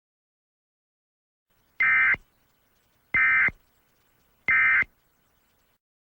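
Emergency Alert System end-of-message signal: three short bursts of buzzing digital data tones, each about half a second long and a little over a second apart.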